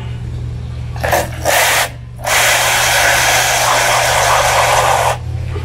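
Garden hose spray nozzle squirting water into a plastic tub: two short bursts about a second in, then a steady spray for about three seconds that cuts off suddenly.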